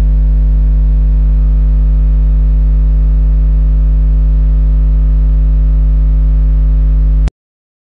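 Loud, steady electrical mains hum with a buzzy stack of overtones, picked up by the recording microphone. It cuts off suddenly into dead silence about seven seconds in.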